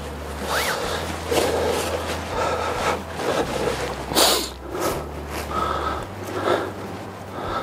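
Zipper on a hammock's mesh bug net being drawn in several short runs, with nylon fabric rustling between them; the longest, loudest rasp comes about four seconds in.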